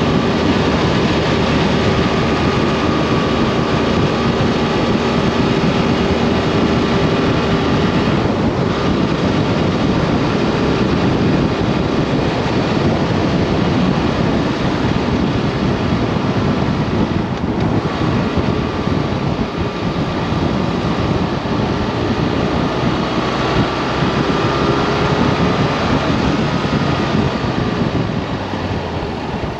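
Motorcycle running at road speed, its engine note drifting slowly up and down, under heavy wind noise on the microphone.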